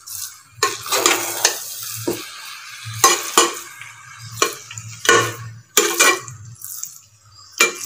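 Metal ladle lightly stirring cooked coconut-milk rice in a coated pot, scraping the rice and the pot in about a dozen short, uneven strokes.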